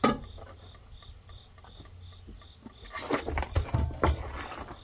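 Rubber track of a Takeuchi TL130 track loader slipping off its sprocket and idler and dropping to the ground in a cluster of heavy thumps and clatter about three seconds in, after a sharp knock at the start. Crickets chirp steadily in the background.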